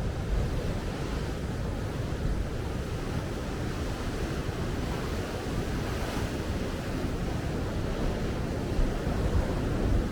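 Sea waves washing onto a sandy beach, one swelling louder about six seconds in, with wind buffeting the microphone in low gusts that peak near the end.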